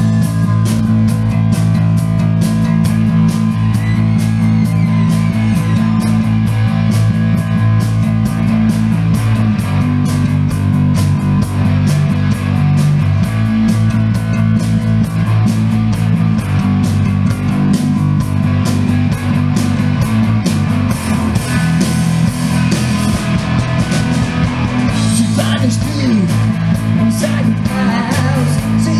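Rock band playing live: electric guitars, bass and drums with a steady, fast drumbeat.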